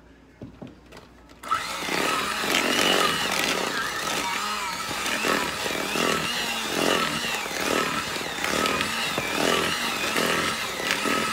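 Electric hand mixer switched on about a second and a half in, then running steadily as its beaters work thick cake batter. Its whine wavers a little with the load.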